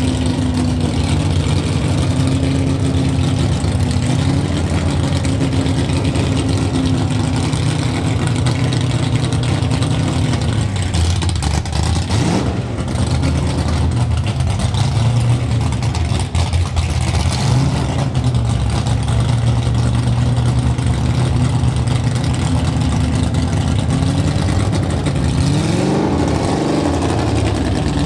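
Big-cam 426 Hemi V8 of a 1968 Dodge Dart drag car running at a lumpy idle while the car creeps along, with a short rev about twelve seconds in and several quick blips of the throttle near the end.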